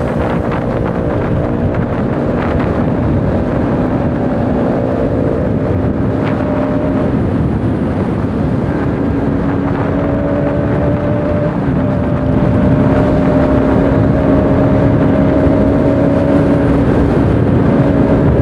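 Sport motorcycle engine running at a steady cruising speed, with wind rushing over the microphone. The engine note holds nearly level and gets a little louder about two-thirds of the way through.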